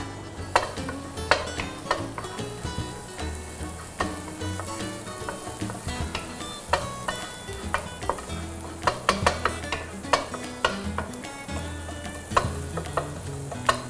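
Minced garlic and ginger sizzling in melted butter in a nonstick frying pan, stirred with a wooden spatula that clicks and scrapes against the pan many times. This is the aromatics being sautéed until fragrant.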